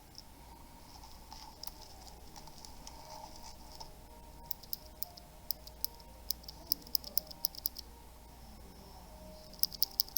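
Quiet, irregular light clicking from a mechanical keyboard being handled, a few clicks a second, in a cluster about halfway through and another near the end.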